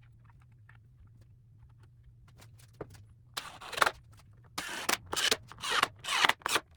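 Faint handling clicks over a low steady hum. From about halfway in, a run of quick, loud scraping strokes, about two a second.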